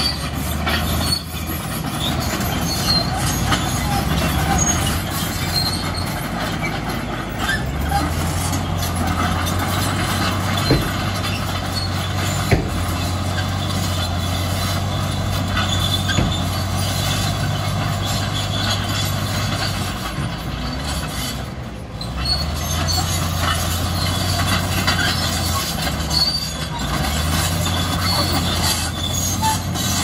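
Crawler bulldozer's diesel engine running steadily as the machine works, its low hum shifting a few times and easing briefly about twenty seconds in, with a couple of sharp metallic knocks in the middle.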